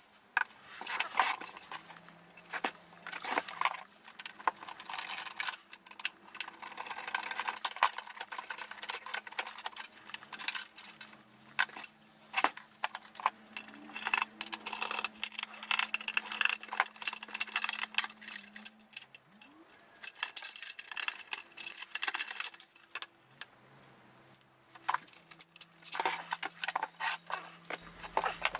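Metal clinking, tapping and rattling as tools, screws and aluminium modules are handled while an avionics transceiver cabinet is taken apart, with many sharp irregular clicks and a faint low hum that comes and goes.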